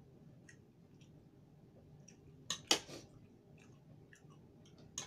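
Fork and spoon clicking and scraping on a ceramic plate while scooping food, with one louder clatter about two and a half seconds in and a sharp click near the end.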